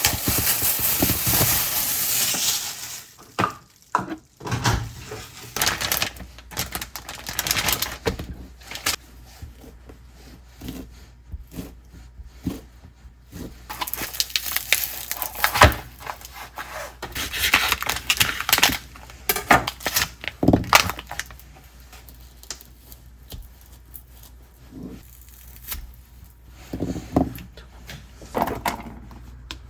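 Kitchen handling sounds: dishes, utensils and containers knocking and clinking at irregular intervals, with a stretch of hissing noise in the first couple of seconds.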